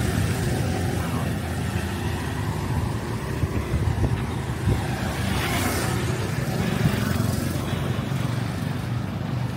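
Road traffic: a steady low rumble of passing cars and motorbikes.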